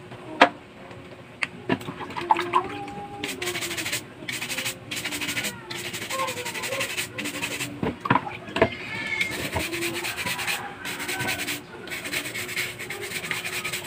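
Stiff plastic scrub brush scrubbing clam shells to clean off dirt, a fast rasping in rapid back-and-forth strokes. A few sharp knocks come in between, the loudest about half a second in.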